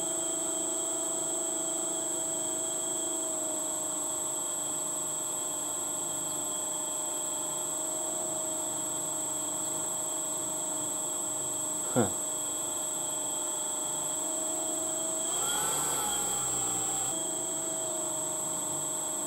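Steady high-pitched electrical whine made of several constant tones. There is a brief click about twelve seconds in, and a short shift in the sound a few seconds later.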